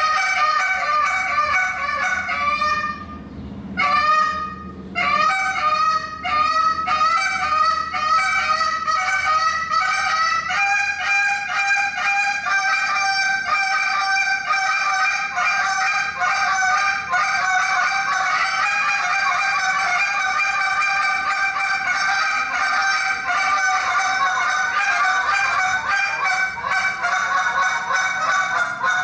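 Hand-blown goose call worked in a fast competition routine: rapid honks and clucks, broken by two brief pauses a few seconds in, then a quick, nearly unbroken run of notes.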